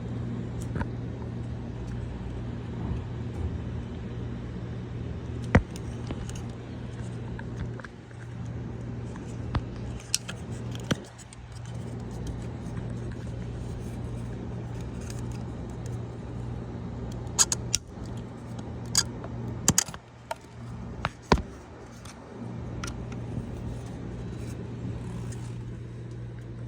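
Sharp plastic clicks and snaps of the retaining clips of a VW Passat master window switch being pried and pressed free of its plastic panel with a butter knife. There is one loud click about five seconds in and a cluster of clicks late on, over a steady low hum.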